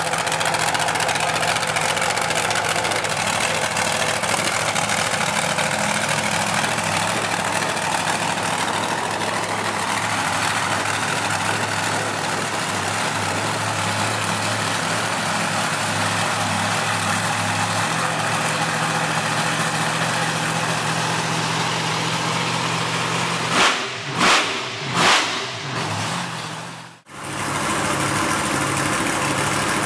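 Engine of a green tube-frame buggy running steadily, with three short louder bursts near the end and a brief sudden break just after them.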